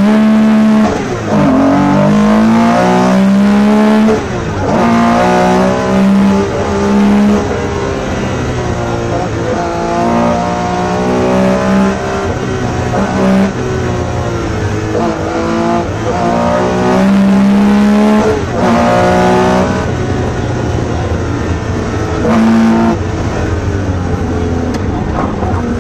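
Porsche 911 RSR's flat-six engine heard from inside the cockpit at full rally pace, revving up through the gears with a sharp drop in pitch at each shift, easing off and pulling hard again several times.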